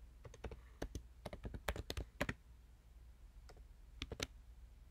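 Typing on a computer keyboard: a quick run of keystrokes over about two seconds, then a few separate key presses near the end, as a short terminal command is entered.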